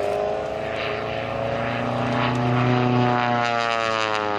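Pitts S-1S aerobatic biplane's engine and propeller running steadily in flight, swelling to its loudest about three seconds in, with the pitch dropping slightly after that as it passes.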